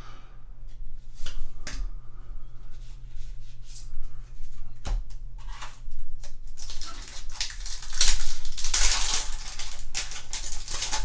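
Trading-card handling with short clicks and rustles, then a foil booster-pack wrapper crinkling loudly for a few seconds from a little past halfway as the pack is torn open.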